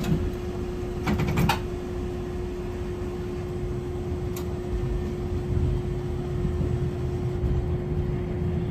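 Hankai Tramway Type 701 streetcar running between stops: a low rumble with a steady hum, and a quick cluster of sharp clicks about a second in.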